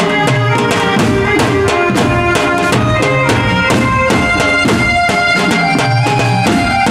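Gujarati garba folk music: a steady, fast drum beat under a sustained melody line.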